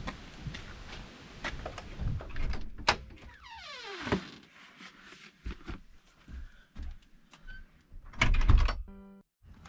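Footsteps and knocks on the floor of an enclosed cargo-trailer camper as plastic containers are carried in and set down, with a falling creak about four seconds in. The trailer's side door is then pulled shut with a loud rattling thunk near the end, the loudest sound here.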